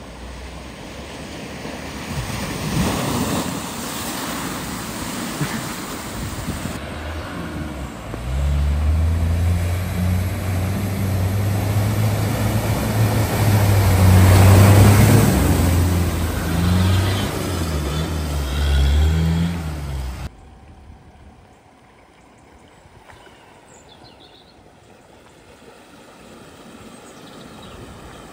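Off-road vehicles driving through deep floodwater across a ford, in three cuts. First, water rushing and splashing around a new Land Rover Defender. Then, about seven seconds in, an old Land Rover pickup ploughs a big bow wave, its engine note loud over the surging water, which builds to a peak and falls away. From about twenty seconds in, a Land Rover Discovery wades more quietly, with water swishing around its wheels.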